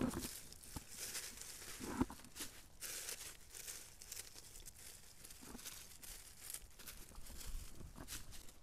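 Dead leaves being gathered up off a gravel bed: irregular rustling and crinkling, with a couple of soft thuds near the start and about two seconds in.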